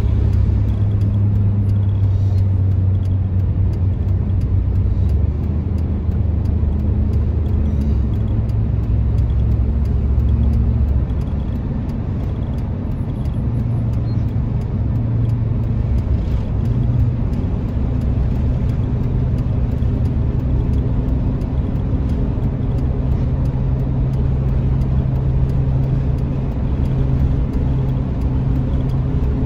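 Car driving, heard from inside the cabin: a steady low hum of engine and tyre noise whose pitch shifts a little now and then, easing slightly about eleven seconds in.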